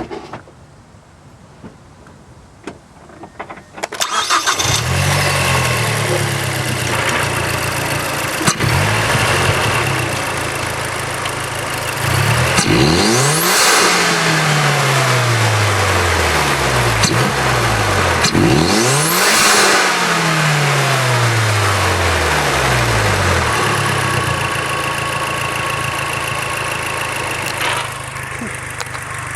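2009 Mazdaspeed3's turbocharged 2.3-litre direct-injection four-cylinder, fitted with a Corksport short ram intake and turbo inlet, starting about four seconds in and settling to idle. It is then revved high twice, each rev climbing and falling back with a turbo suction whistle rising and falling in pitch along with it.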